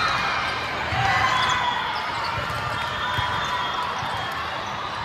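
Indoor volleyball being played on a gym court: the ball being struck and bouncing amid the continuous noise of the match.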